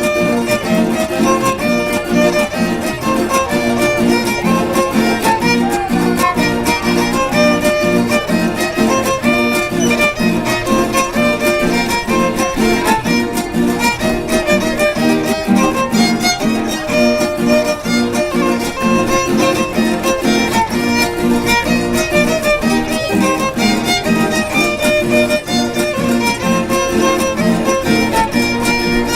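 Music led by a violin over a steady strummed or plucked rhythm, running without a break.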